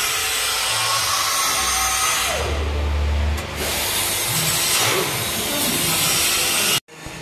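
Workshop noise: loud, steady hissing and whirring of power tools running, with a low hum swelling for about a second in the middle. It cuts off suddenly near the end.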